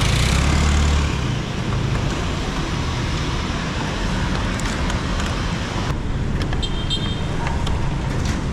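Motor-scooter engine and road traffic noise, a steady rush that is loudest in the first second and cuts off abruptly about six seconds in. A quieter background follows, with a few clicks and short high beeps.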